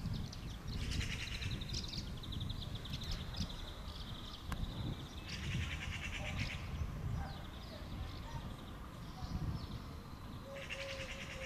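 Low rumble of a Trenitalia Pop electric train rolling slowly into a station. Rapid high buzzing trills come and go several times over it.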